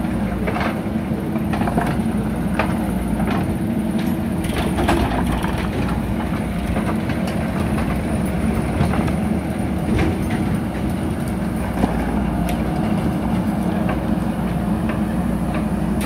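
JCB 3DX backhoe loader's diesel engine running steadily under load while its backhoe bucket works through a heap of stones. Scattered sharp clicks and knocks of rock, most of them in the first few seconds.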